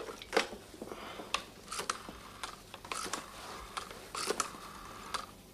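Rotary telephone being dialled: sharp clicks as the dial is wound round, each followed by a short whirring run as it springs back, number after number.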